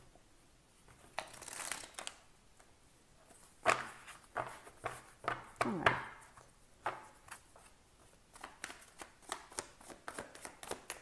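A deck of tarot cards being shuffled by hand: scattered soft taps and slaps as the deck is split and squared, then a quick run of card flicks in the last few seconds.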